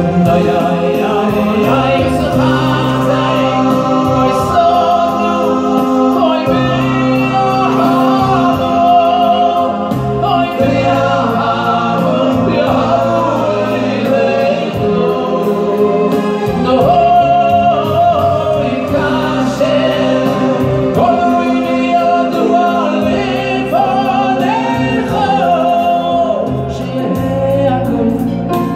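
Male vocal group singing a Jewish song into microphones over a PA, with a lead voice carrying the melody and the others harmonising, accompanied by an electronic keyboard playing sustained chords and bass notes.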